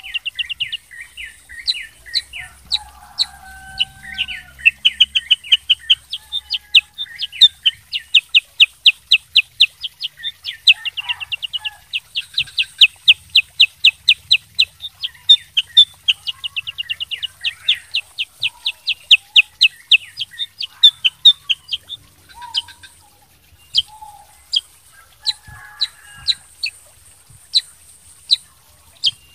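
Black-headed bulbul (kutilang sutra) singing: long runs of rapid, sharp, high chip notes, several a second, broken by short pauses.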